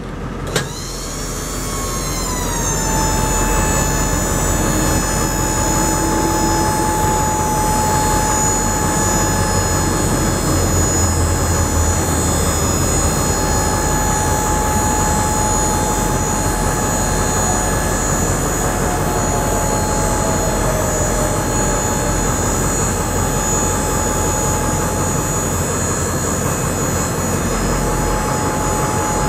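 Dump truck's hydraulic lift pump running under load as it raises the bed: a steady high whine that comes on about half a second in, drops slightly in pitch over the next couple of seconds as the load comes on, then holds steady.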